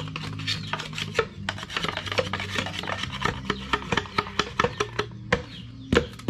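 Hand tools scraping, rasping and knocking on wood while a trap is being made: a quick, irregular run of scraping strokes and sharp clicks, with the loudest knock near the end.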